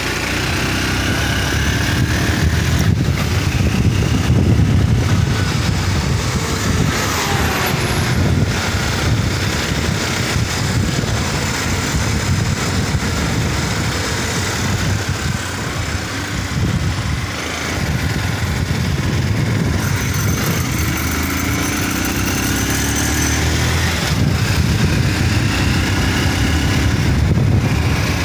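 Motorcycle engine running steadily while riding a winding hill road, with heavy wind rumble on the microphone.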